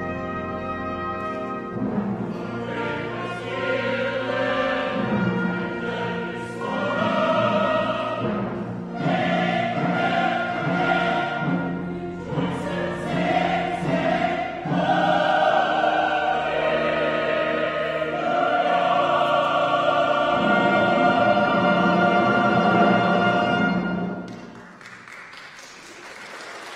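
Church choir singing a choral anthem with brass and timpani accompaniment, building to a long held final chord that cuts off near the end. Applause begins just after.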